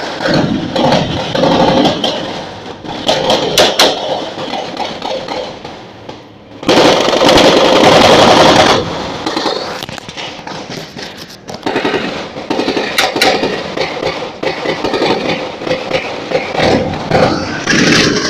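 Gunfire from automatic weapons: repeated bursts and scattered single shots, with the loudest, longest burst of continuous rapid fire lasting about two seconds, around seven seconds in.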